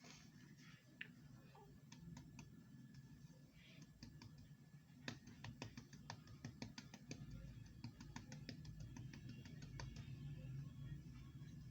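Faint, quick, irregular clicks and taps, starting about five seconds in and thinning out toward the end, over a low steady hum.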